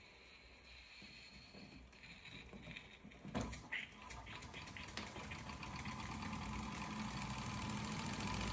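1917 Bing toy steam engine, held back by the stepper motor belted to it as a generator, runs quietly at first. A sharp click comes a little past three seconds as the belt is pulled off. Freed of the load, the engine picks up speed, its fast, even exhaust beats quickening and growing louder toward the end.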